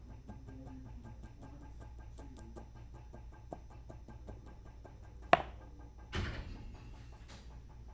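A rock in a jute-twine harness being dragged over river stones by a slowly winding motor, under a faint steady hum with small ticks. About five seconds in, the rock gives one sharp stone-on-stone clack. A second later comes a rougher scrape lasting about a second.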